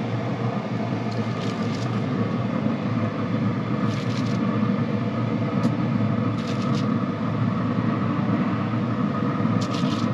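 Steady hum of a running Traeger pellet grill's fan, with a few brief clicks and rustles as chicken thighs are laid on the metal grate beside foil-lined sheet pans.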